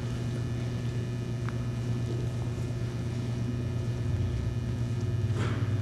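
A steady low hum over faint background noise, with a brief faint sound shortly before the end.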